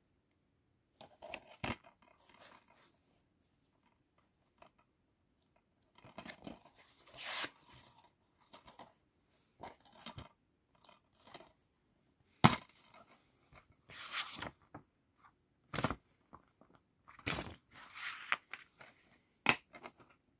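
Hands handling a plastic DVD case in a cardboard slipcover: sliding, rustling and scraping, broken by several sharp clicks as the case snaps open and the disc is pressed off its centre hub.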